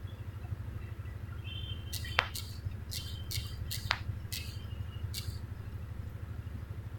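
A cluster of short taps and clicks on a smartphone as a finger is pressed again and again on its fingerprint sensor during enrollment, two of them quick falling chirps, over a steady low hum.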